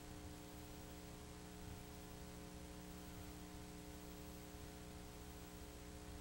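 Steady electrical hum with a faint hiss underneath, unchanging throughout; no motorcycle or other event sounds.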